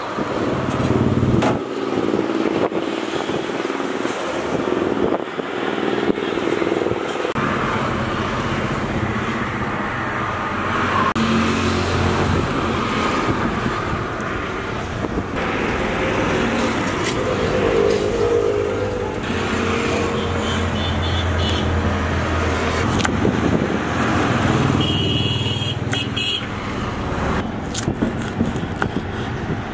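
Road traffic passing: vehicle engines running steadily, with a short horn toot near the end.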